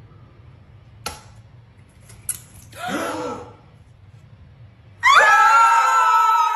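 A light knock about a second in and a smaller click a little later as an egg goes into a frying pan. About five seconds in, a small group breaks into loud, sustained excited screaming.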